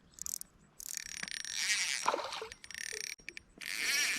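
Fishing reel being cranked in several short bursts, its gears whirring, as a hooked fish is reeled in.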